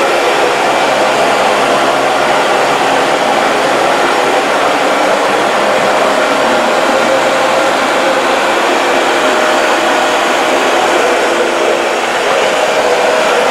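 Dyson DC40 MKII bagless upright vacuum cleaner running steadily over a rug, a dense even motor-and-airflow rush with a few faint steady tones in it and a slight dip near the end.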